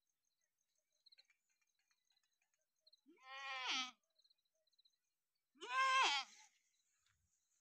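Goat bleating twice: two quavering calls of about a second each, a couple of seconds apart.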